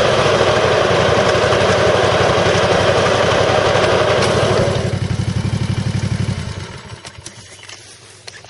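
Exmark Turf Tracer zero-turn mower's 17 hp Kawasaki engine running steadily. It settles to a lower, duller sound a little past halfway, then is shut off and dies away, leaving a few faint clicks.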